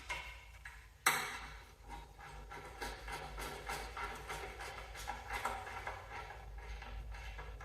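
Hand wrench tightening engine-mount bolts: a string of light metallic clicks, with one sharp clank about a second in.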